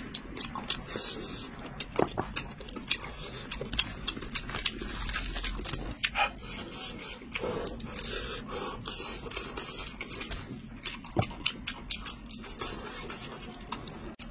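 Close, irregular clicks, taps and scrapes of food and kitchenware being handled.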